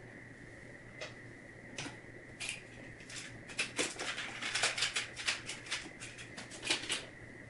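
Small clicks and scrapes of a screwdriver working a light switch's terminal screws and of wires and plastic wire nuts being handled. They come thickest in the second half, over a faint steady high whine.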